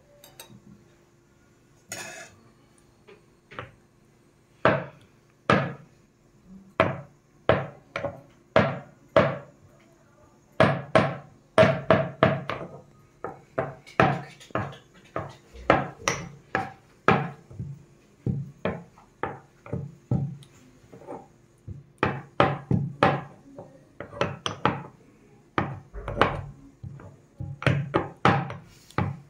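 Stone pestle pounding and grinding tomatoes in a stone mortar: a long run of dull knocks, mostly about one a second, with quicker flurries of two or three a second in the middle and near the end.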